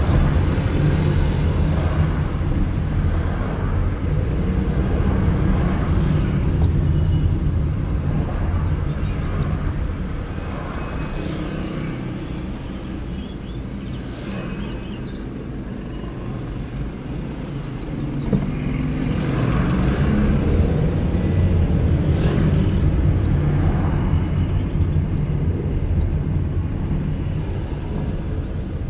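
Car driving through city streets: steady low engine and road rumble with traffic around it. It eases off about ten seconds in and builds again near twenty seconds, with a few short swells of hiss.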